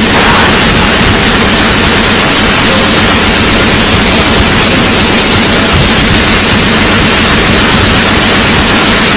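Extremely loud, distorted wall of noise from many overlapping sounds in a glitchy animation's soundtrack, with a steady high whistle running through it that starts to warble near the end.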